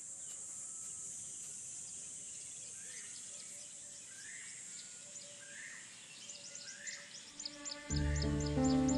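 Evening bush ambience: a steady high-pitched insect buzz, with a bird repeating a short rising call about once a second. Near the end, quick high chirps start, and soft background music comes in about eight seconds in.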